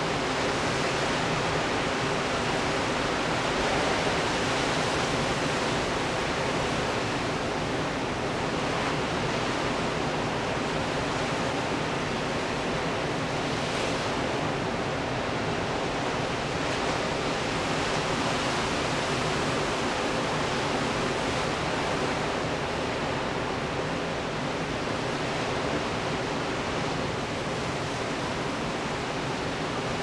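Pacific Ocean surf breaking over a rocky shoreline: a continuous, steady rush of waves and white water, swelling only gently, with no single distinct crash standing out.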